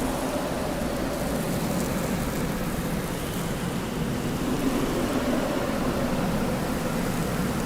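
Desert wind blowing steadily: a constant rushing, with faint hollow tones that waver slowly up and down in pitch.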